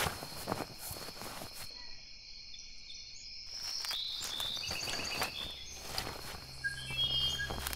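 Forest ambience: insects chirping with short high calls, and footsteps on the forest floor. A low steady hum comes in near the end.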